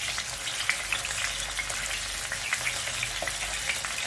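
Chicken wings frying in hot oil in a pan: a steady sizzle with scattered small crackles.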